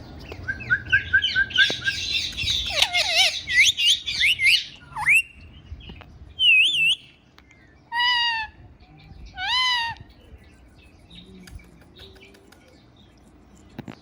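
Indian ringneck parrot (rose-ringed parakeet) calling. It starts with a quick run of about seven short repeated notes, goes into rapid, dense chattering, then gives a wavy whistle and two separate harsh screeches about a second and a half apart.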